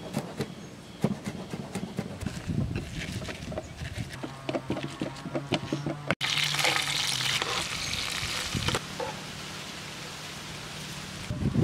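A cleaver knocks briefly on a wooden chopping board, then a pestle crushes and grinds chillies and shallots in a wooden bowl with soft, irregular knocks. About six seconds in, after a cut, small dried fish sizzle in hot oil in a frying pan, loud at first and then settling to a quieter steady sizzle.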